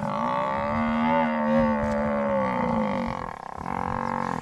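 Cape buffalo bellowing in distress while pinned down by lionesses: one long, drawn-out call lasting a little over three seconds, rising slightly and then falling in pitch before it fades out near the end.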